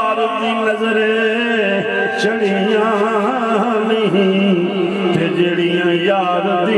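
A man singing a Punjabi Sufi verse in a long, ornamented melody, his voice wavering up and down with no clear words.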